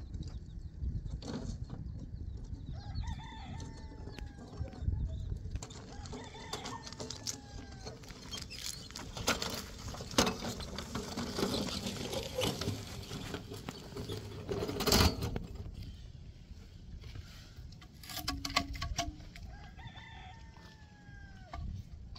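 Chickens calling several times, each a short cry that rises and falls, over wind rumble on the microphone. Between the calls come knocks and scrapes from a shovel and wheelbarrow, the loudest about fifteen seconds in.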